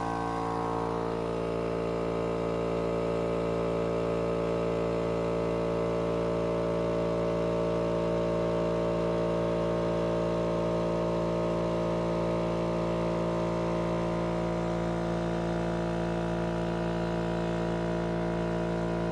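Small 2-gallon Wood River air compressor running steadily as it recharges its tank, recovering pressure fairly quickly.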